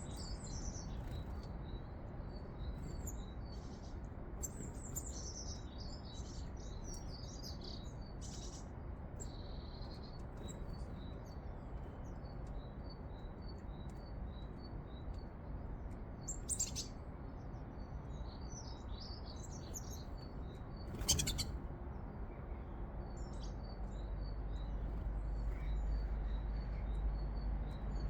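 Small garden birds chirping: a steady series of short, high chirps with other brief calls over it, against a low background rumble that grows louder near the end. One sharp click about two-thirds of the way through.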